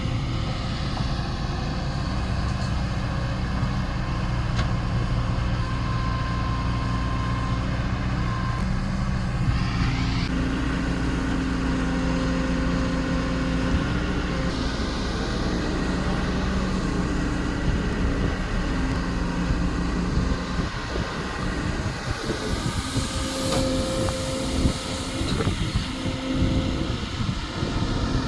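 Kobelco SK220 hydraulic excavator's diesel engine running under working load, its note shifting as the hydraulics are worked. In the last third it turns rougher, with scattered knocks.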